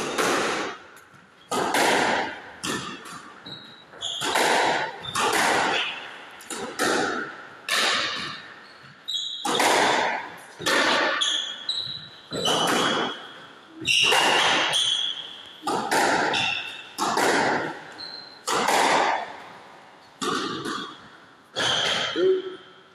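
A squash rally: the ball struck by rackets and smacking off the court walls about once a second, often in quick pairs, each hit ringing in the enclosed court. Shoes squeak on the court floor between shots.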